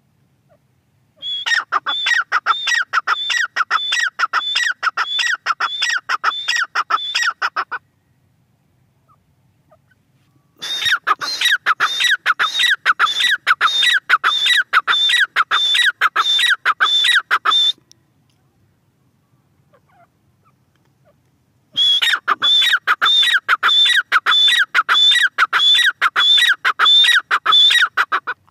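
Grey francolin (teetar) calling: three long bouts of loud, rapidly repeated high notes, about two a second, each bout lasting six or seven seconds with short pauses between.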